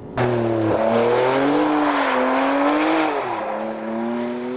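High-performance sports car engine accelerating hard at full throttle. Its pitch drops sharply twice, about a second in and again about three seconds in, as it shifts up through the gears.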